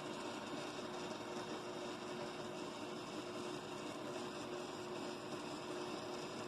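A steady hum over a constant hiss, unchanging throughout.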